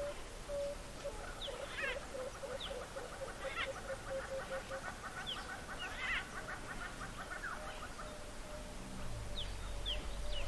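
Several wild birds calling together: a run of quick, evenly repeated notes, a long rapid trill, and short high chirps. A low rumble joins near the end.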